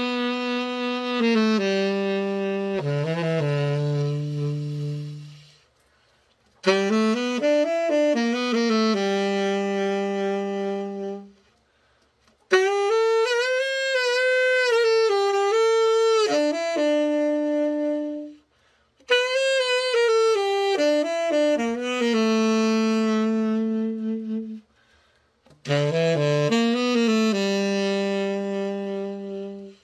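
Yamaha YTS-62 tenor saxophone played solo in five short melodic phrases of held notes, some with vibrato, with brief pauses between them. It is the play test after a complete overhaul.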